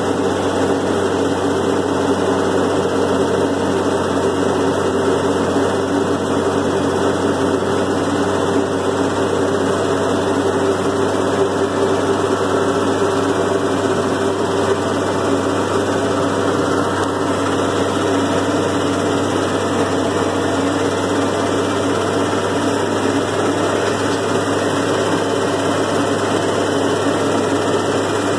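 Farm tractor engine running steadily under way, heard from inside the cab, with a constant even drone and no change in speed.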